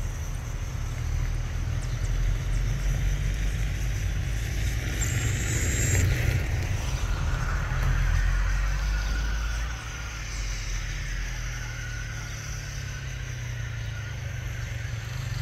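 Airbus A320neo jet engines at taxi power as the airliner rolls by: a steady low rumble, with a faint high whine over it from about halfway through.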